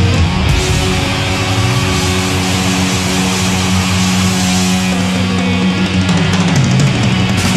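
Thrash metal band playing live: heavily distorted electric guitars and bass hold one long low chord for several seconds, then move into a new riff near the end.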